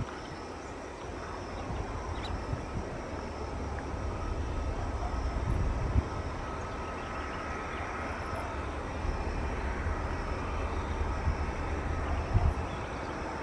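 Jet airliner on final approach, its engines a distant rumble with a faint steady whine that builds around the middle, under uneven low rumbling noise on the microphone.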